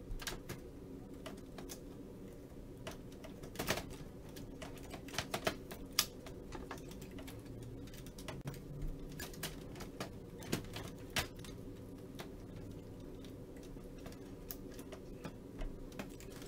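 Irregular clicks and knocks of plastic printer parts being handled and fitted by hand inside a Kyocera printer, thickest about four to six seconds in and again around ten to eleven seconds, over a steady low hum.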